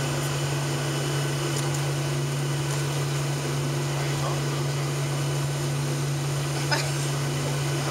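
Cabin noise of a Boeing 737-700 taxiing: its CFM56 engines at idle and the air conditioning make a steady drone with a strong low hum. One short click sounds about two-thirds of the way through.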